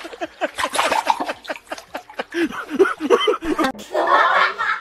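Several people laughing in short choppy bursts, mixed with bits of voices, with a louder burst of laughter about four seconds in.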